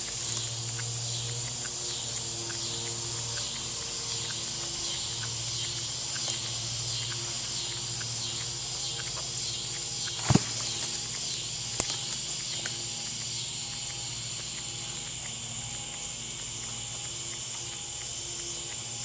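Insects trilling in a steady high-pitched chorus, with a single sharp knock about ten seconds in.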